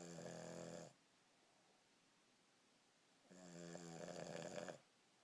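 A dog snoring while awake: two long, buzzy snoring breaths about two and a half seconds apart.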